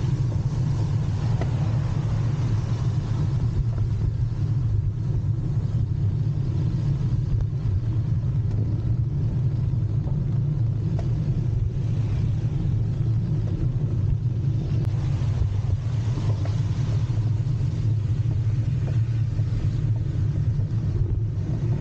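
Steady low rumble with an even hiss from riding along a wet road in the rain amid motor traffic.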